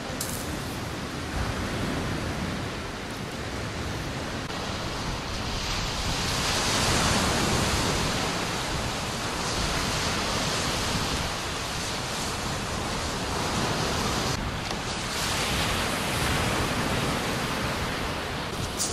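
Sea surf washing onto a shingle beach: a steady hiss of breaking waves that swells about six seconds in and again around fifteen seconds.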